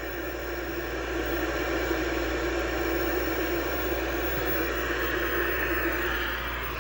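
1970 Truetone Personal 75 tube television running with its sound on: a steady static hiss with a low mains hum underneath.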